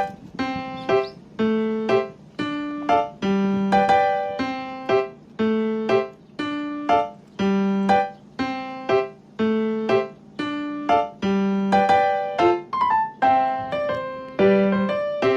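Background music: a light keyboard tune of short, quickly fading notes at an even pace, about two a second.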